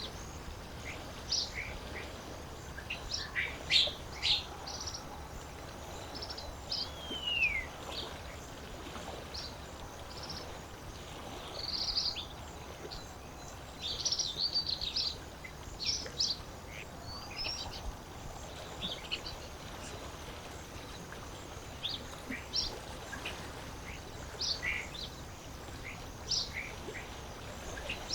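Several birds chirping and calling at irregular intervals, with one descending whistle about seven seconds in, over a steady low wash of lake water.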